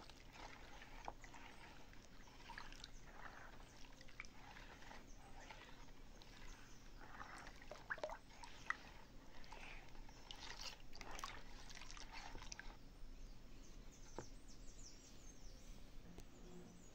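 Faint swishing and sloshing of a soapy detergent mixture being stirred with a spatula in a plastic basin, with a few light clicks of the spatula against the basin.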